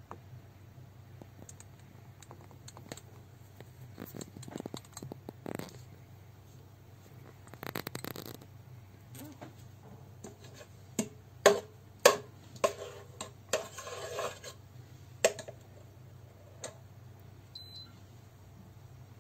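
Plastic spatula knocking and scraping against the inner pot of a Redmond multicooker, with a run of sharp knocks about halfway through. A short high beep sounds near the end.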